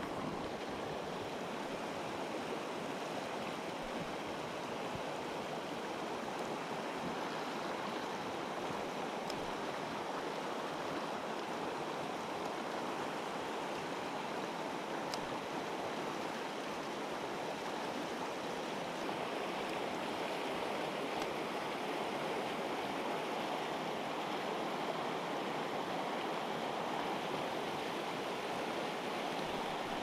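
Steady rush of a mountain river's flowing water, with no breaks or changes.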